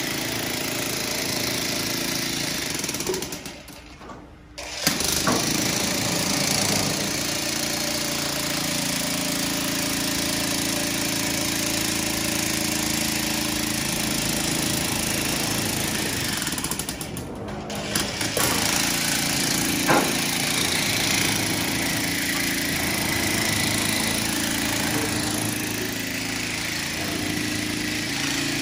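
Electric demolition hammer driving an earth rod into the ground: a steady, rapid hammering that stops twice, for about a second and a half some three seconds in and briefly around seventeen seconds in.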